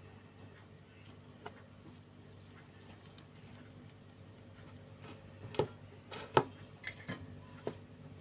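Handling sounds of hands rolling besan-coated taro leaves on a steel plate: scattered soft taps and sharper clicks on the metal, mostly in the second half and loudest about three quarters through, over a faint steady hum.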